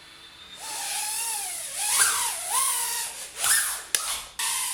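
Tiny whoop FPV drone's brushless motors and propellers whining in flight, starting about half a second in. The pitch rises and falls with the throttle and the sound drops out briefly a few times.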